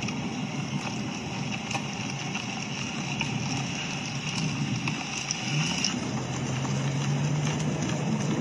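Car moving slowly along a street: steady engine and road noise, with a low steady hum coming in about two-thirds of the way through.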